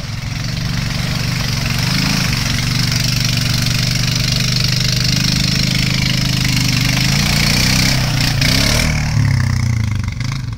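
Honda Rancher 420 ATV's single-cylinder engine revving under load while the 26-inch Mudzilla tires churn through a mud hole. The engine note rises and falls repeatedly, then drops and quietens near the end as the quad comes out of the mud.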